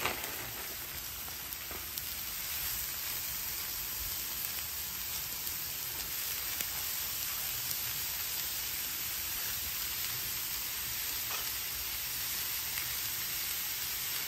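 Shredded cabbage and carrot coleslaw mix sizzling steadily on a hot Blackstone flat-top griddle as it is spread out to cook dry, a little louder from about two seconds in.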